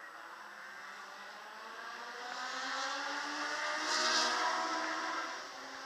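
Racing car engine out on the circuit, heard at a distance, swelling to its loudest about four seconds in and then fading as it passes.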